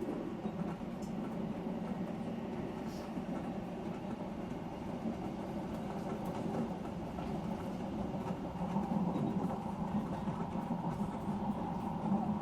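Odakyu Line electric train running at speed, heard from inside the train: a steady rolling rumble of wheels on rail, a little louder over the last few seconds.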